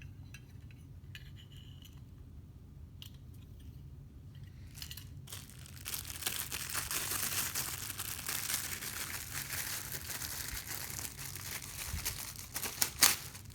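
Packaging crinkling and tearing as it is pulled off, starting about six seconds in, after a quiet stretch with a few faint clicks. A few sharp knocks just before the end are the loudest sounds.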